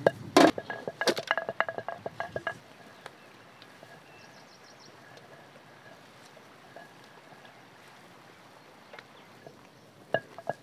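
Wooden pestle pounding cinnamon and cloves in a stone mortar: a quick run of sharp knocks that stops about two and a half seconds in. After that only a low hush with a few faint clicks.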